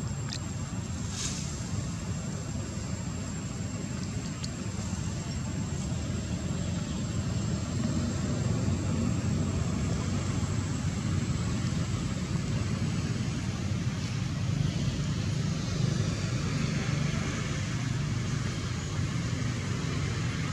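Steady low rumble with hiss, growing somewhat louder about eight seconds in, with a thin steady high tone above it and a couple of faint clicks near the start.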